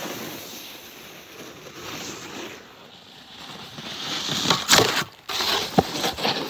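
Snowboard sliding and scraping over snow, with wind and handling noise on the microphone. A louder, rougher scrape and a few sharp knocks come about four and a half to six seconds in.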